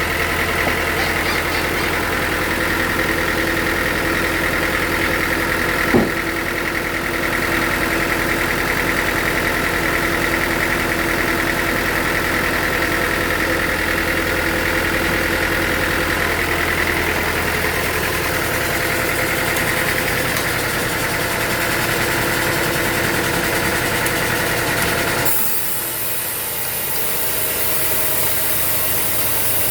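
An engine running steadily at an even speed, with a single sharp knock about six seconds in. Near the end the sound changes abruptly to a thinner, hissier machine noise.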